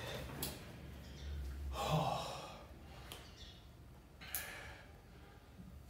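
A man breathing hard after a set of push-ups: a few loud gasping breaths and sighs, the loudest about two seconds in.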